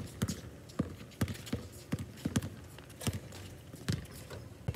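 Basketball bouncing on an outdoor hard court, mixed with players' sneaker footsteps: about a dozen uneven thuds.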